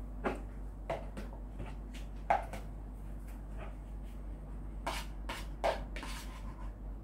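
Plastic pet food bowls knocking together as they are picked up off a table and stacked: a series of short, irregular clacks, several coming close together about five seconds in.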